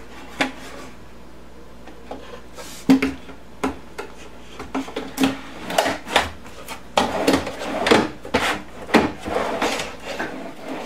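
Wooden cabinet shelf being handled and fitted, knocking and scraping against the cabinet and its drawer guides. There are a few separate knocks at first, then busier scraping and knocking in the second half.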